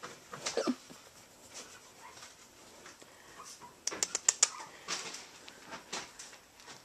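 Yorkshire terrier puppy's small play sounds while being tussled by a hand: a short falling yip about half a second in, then rustling and a quick run of sharp clicks around four seconds in.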